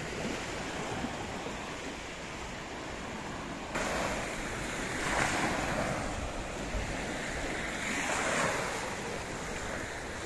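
Sea surf washing up on the beach, with two louder waves rushing in, about five and eight seconds in, and wind rumbling on the microphone.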